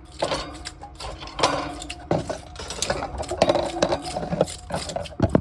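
Irregular clinks, knocks and scrapes of metal against metal and concrete, some strikes ringing briefly, as steel pieces or tools are handled.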